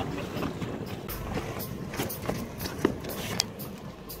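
Steady low rumble of a boat at sea, with a few short, sharp knocks about two to three and a half seconds in.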